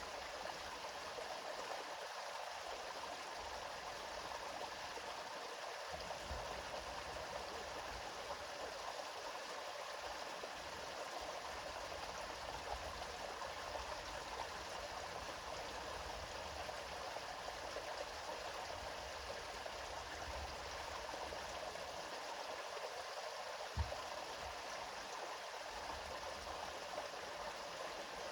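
A river flowing steadily, an even rushing and burbling of water, with a single low thump about three-quarters of the way through.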